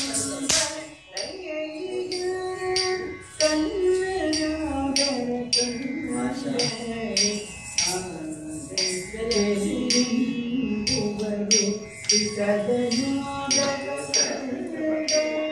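Carnatic-style music for classical dance: a woman singing a Kannada vachana in a slow, bending melodic line, with a regular run of sharp metallic strikes keeping the beat.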